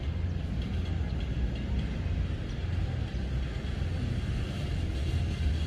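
A low, uneven rumble of outdoor background noise, with no distinct events.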